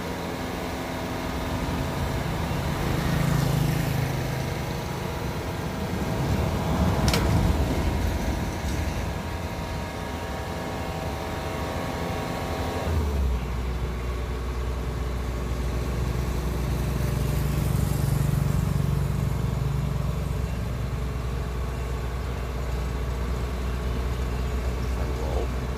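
Heavy diesel engine running steadily, with a sharp click about seven seconds in and an abrupt change in its low hum about thirteen seconds in.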